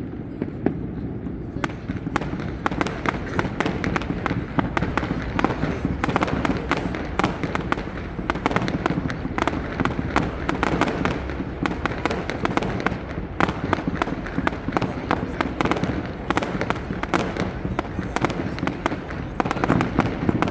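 Fireworks display: a dense, continuous run of crackling and popping explosions over a steady low rumble, with no pause.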